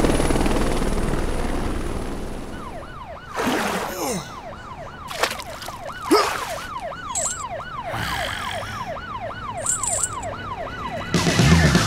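Police siren in a fast repeating up-and-down wail, about two cycles a second, after a helicopter's rotor noise fades out over the first few seconds. A few short hits and swishes sound over the siren, and music comes in near the end.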